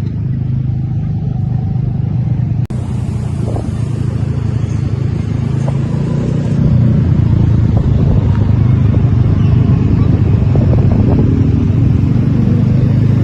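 Steady low rumble of road-vehicle engine and road noise, with a sudden break about three seconds in.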